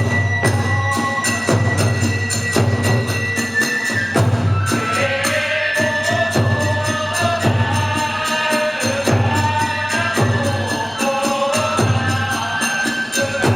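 Kagura hayashi music: taiko drum and clashing hand cymbals keep a steady beat, while a held high flute note gives way about five seconds in to a melodic line with chanted singing.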